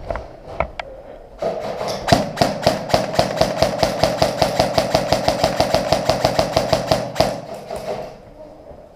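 Airsoft electric gun firing a long full-auto burst: a rapid, even string of shots over the whine of its gearbox motor, starting about a second and a half in and stopping sharply about six seconds later. A few scattered clicks come before it.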